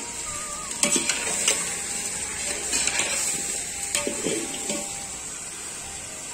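Metal utensil clinking and scraping against a cooking pot, a few scattered knocks over several seconds, over a steady hiss.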